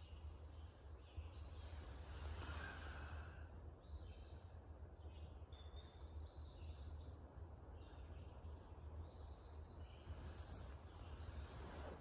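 Faint birdsong in a forest: scattered short high phrases from several birds, with a quick high trill about six seconds in, over a steady low rumble.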